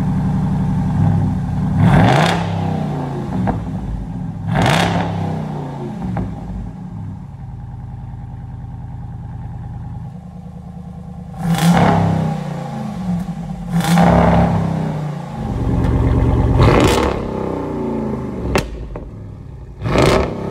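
Jeep Wrangler Rubicon 392's 6.4-litre HEMI V8 through a Borla ATAK cat-back exhaust, with its exhaust valve closed in the first half, idling and blipped up to revs about six times. The longest stretch of idle comes in the middle, between the revs.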